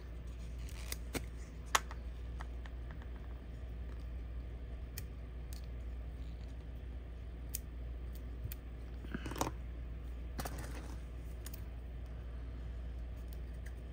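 Quiet handling of paper craft pieces while gluing: scattered light clicks and taps, with two brief rustles about nine and ten and a half seconds in.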